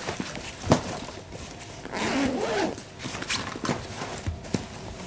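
A soft camera bag being unzipped, a raspy zip about two seconds in, among sharp clicks and knocks as the bag is handled and the camera is taken out.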